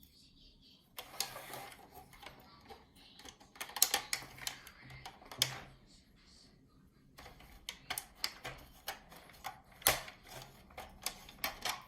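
Irregular clicks and light knocks of small hard plastic parts being handled and fitted together, a few of them sharp and loud.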